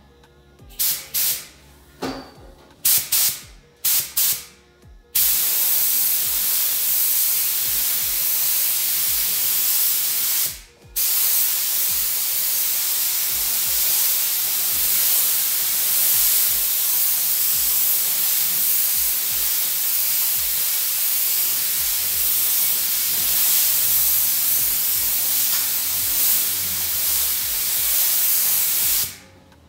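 Compressed-air paint spray gun laying down a coat of paint: several short bursts first, then a steady hiss of air and paint, broken once briefly about ten seconds in.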